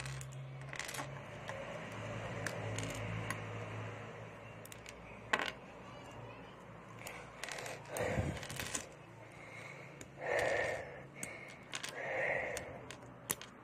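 Plastic Lego bricks being pulled apart and handled, giving scattered sharp clicks and small scrapes. About ten and twelve seconds in there are two brief murmured sounds from a person's voice.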